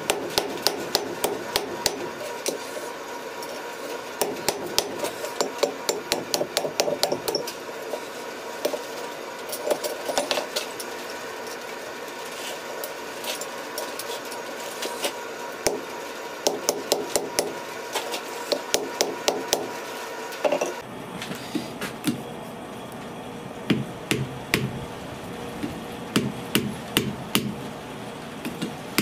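Blacksmith's hammer striking a red-hot steel cross on an anvil, in quick runs of blows with short pauses between. About two-thirds of the way through, a steady low hum comes in under the strikes.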